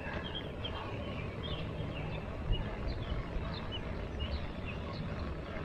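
Birds chirping in short, scattered high notes over a steady low rumble.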